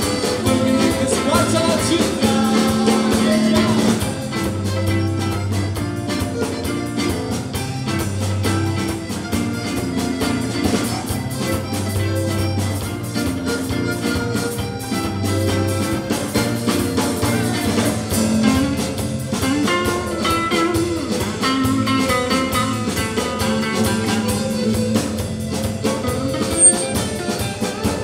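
Live ethno-folk-rock band playing: electric guitar, bass guitar, piano accordion and drum kit together, at a steady level.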